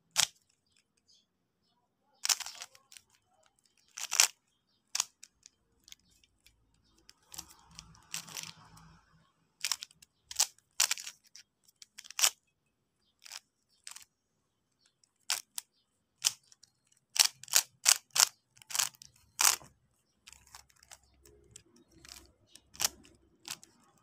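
Plastic Rubik's cube being turned by hand: irregular sharp clicks and clacks of the layers snapping round, sparse at first and coming in quicker runs in the second half.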